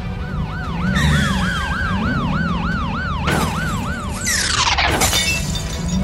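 Police car siren in a fast yelp, rising and falling about four times a second, over background music. After about four seconds it gives way to a falling sweep and a crash of cars colliding, with glass shattering.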